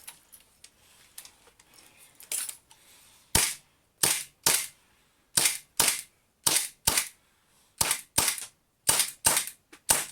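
A WE Colt 1911 gas blowback airsoft pistol, fitted in a carbine kit, firing about a dozen sharp shots. The shots come mostly in pairs about half a second apart, starting a few seconds in.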